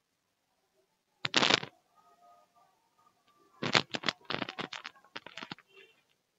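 Computer keyboard keys clattering: a short quick flurry about a second in, then a run of irregular rapid clicks for about two seconds past the middle.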